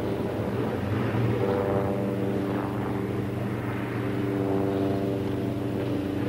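Propeller-driven piston engine running steadily, a continuous droning hum with a slight waver in pitch.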